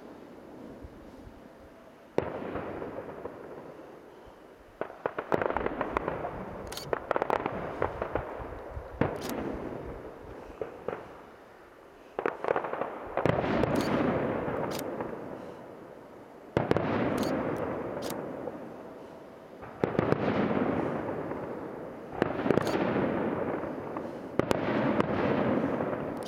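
Aerial fireworks shells bursting one after another, about ten in all. Each sharp bang is followed by crackling that fades away over two to three seconds.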